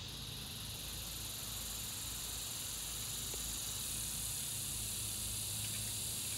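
Steady outdoor background noise: an even high hiss with a low hum beneath it, and a few faint small clicks.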